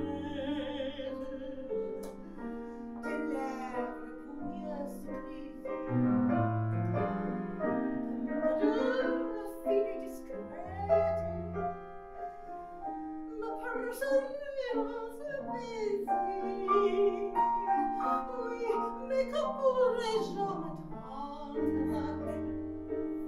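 A woman singing a French chanson in a trained, operatic voice, with vibrato on the held notes, accompanied by a grand piano.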